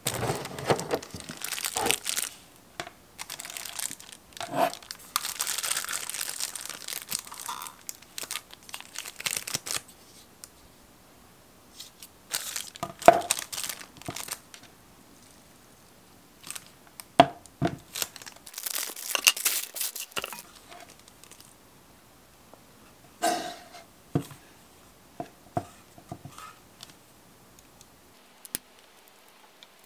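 Plastic packaging crinkling and rustling as a gel nail lamp is lifted out of its clear plastic tray and its protective plastic wrap is handled, in irregular bursts. A few sharp taps and knocks of the lamp's plastic body come in between.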